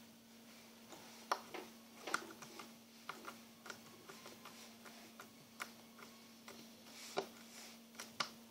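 Crunchy, fluffy slime pressed and squeezed by fingers, giving faint, irregular sharp pops as the air bubbles in it burst.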